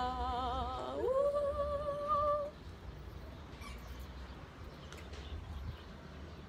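A woman singing the greeting "Welcome to Kaohsiung" in long held notes with vibrato, jumping up in pitch about a second in and ending about two and a half seconds in. After that there is only a low steady rumble.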